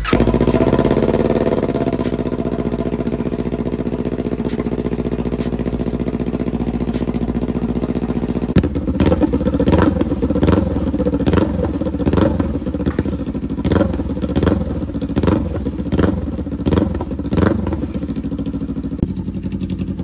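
Kawasaki Ninja 400 parallel-twin with a new aftermarket slip-on exhaust, louder than stock, firing up and idling steadily. About eight seconds in, the throttle is blipped over and over, roughly once every 0.7 s, with little pops from the exhaust on each blip. The engine is shut off near the end.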